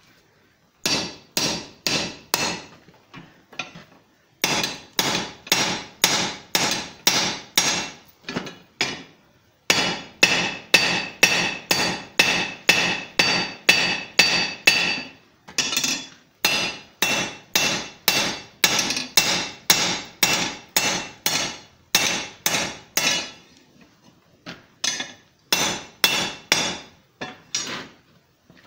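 Hand hammer striking a hot steel bar on an anvil in runs of blows about two a second, broken by short pauses, with a clear metallic ring to the strikes. The blows are forging an upset square corner into the bend of the bar.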